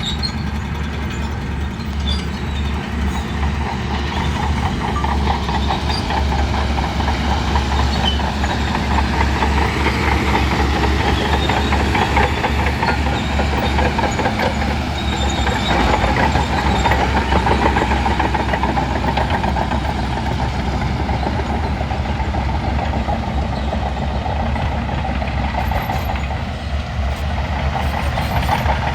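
Shantui crawler bulldozer's diesel engine running steadily, with the fast clanking rattle of its steel tracks over it.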